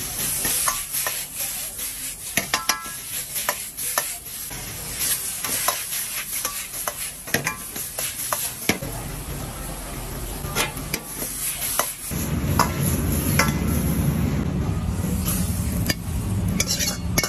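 Metal wok ladle stirring and scraping a stir-fry in a wok: repeated sharp clicks and clanks of metal on the wok over a steady sizzle. About twelve seconds in, a louder low rumble joins the sizzle.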